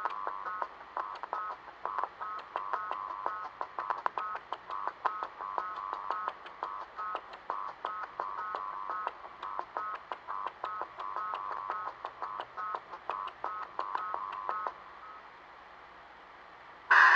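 Electronic beeping: a long, rapid run of short beeps at two or three alternating pitches, each with a faint click, like keypad tones. It stops about 15 seconds in.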